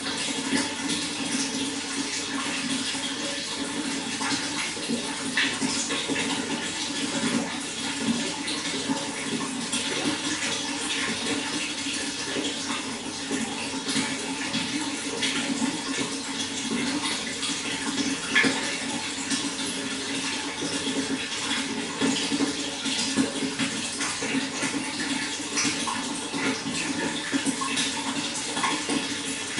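Running water flowing steadily, with small splashes throughout.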